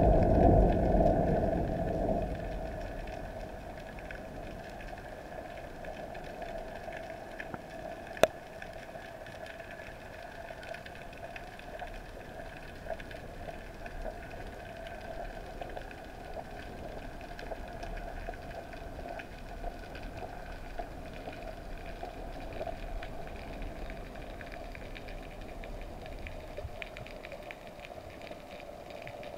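Heard underwater, the tail of a loud boom of unknown origin dies away over the first two seconds or so. It leaves a steady hum and faint crackling, with a single sharp click about eight seconds in.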